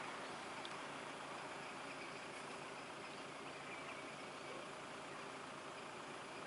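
Faint, steady hum of car engines idling, under an even outdoor hiss.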